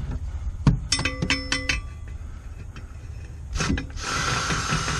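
A few ringing metallic clinks and a knock as a cordless drill is worked into a cramped metal-framed compartment. Near the end the drill runs for about a second, backing out a screw.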